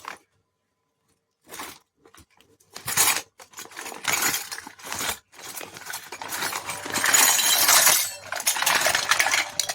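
Small pieces of a miniature toy kitchen set being handled in unboxing: light clinks and clicks and crinkly packaging noise. It starts after a short silence and grows into a denser stretch of crinkling near the end.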